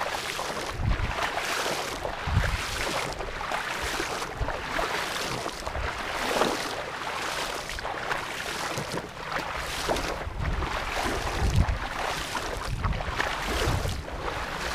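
Legs wading through shallow floodwater in a rice paddy, sloshing and splashing in a steady rhythm of roughly one stride a second.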